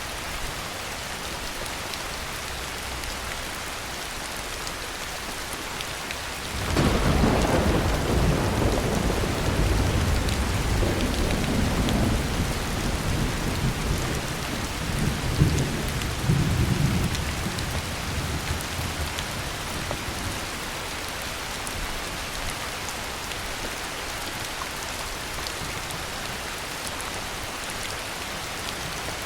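Heavy rain falling steadily. A long rumble of thunder starts about six seconds in, swells with a few louder peaks, and dies away over about twelve seconds.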